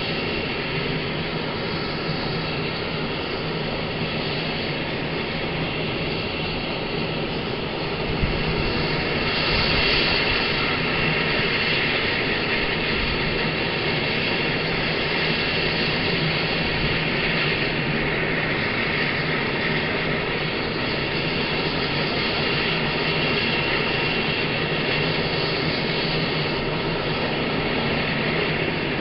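Bell 430 twin-turbine helicopter running on the ground with its rotor turning: a steady turbine whine over rotor noise, swelling slightly about nine seconds in.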